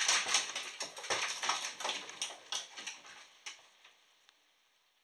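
Puppies' claws clicking and pattering fast on a tiled floor, thinning out and fading over about four seconds, with a few single sharper clacks near the end from the pet-door flap swinging.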